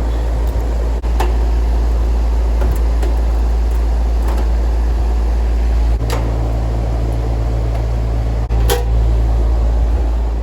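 Steady low hum from an air conditioner's outdoor condensing unit while its compressor is not running. A handful of sharp clicks and knocks come through it, as the unit's access panel is worked open.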